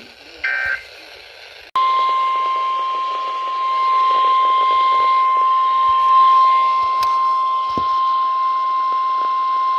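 NOAA Weather Radio alert broadcast: a brief warble of digital SAME data tones, then about two seconds in the steady single-pitch 1050 Hz weather alert tone starts and holds over radio hiss. The tone signals that a new National Weather Service warning is about to be read.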